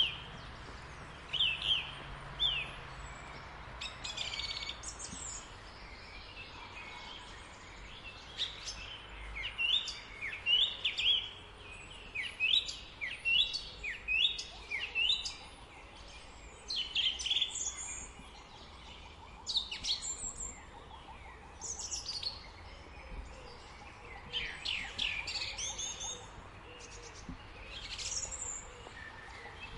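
Small birds chirping: many short, quick chirps that slide down in pitch, coming in irregular clusters throughout, over a faint steady low background rumble.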